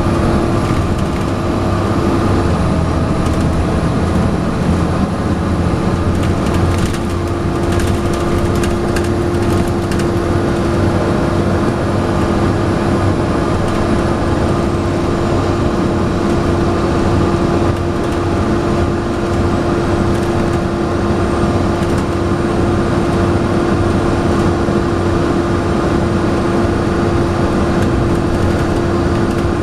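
Volvo B7TL double-decker bus running under way, heard from on board, its engine working hard with the loud, steady, vacuum-cleaner-like whine known as hoovering held throughout. A few brief clicks and rattles come about seven to nine seconds in.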